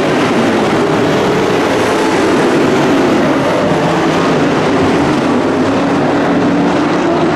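A pack of dirt-track stock race trucks racing, their engines running together in a loud, steady din with several held pitches.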